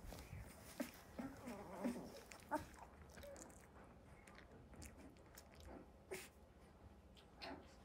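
A litter of newborn Belgian Malinois puppies asleep in a pile, making faint scattered whimpers, snuffles and small mouth sounds; busier in the first few seconds, then mostly quiet with an occasional soft click.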